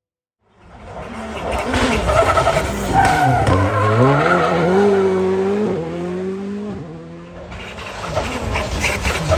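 Rally car driven hard on a special stage, its engine rising and falling in pitch through gear changes and lifts. It starts suddenly about half a second in, eases off briefly around two thirds of the way through, then revs up again.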